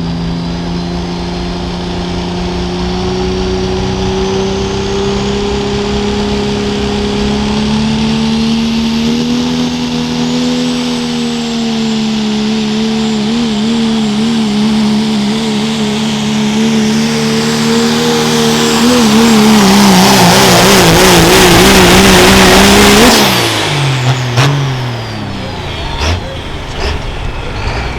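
Turbocharged Dodge diesel pulling truck under full load down the sled-pull track, its engine pitch climbing slowly and then wavering up and down as the truck bounces. It is loudest about 20 seconds in, then the driver backs off about 23 seconds in and the engine note drops sharply, followed by a few knocks.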